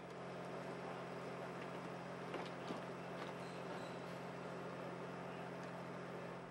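Engine of construction-site equipment running steadily at constant speed, with a couple of faint knocks about two and a half seconds in.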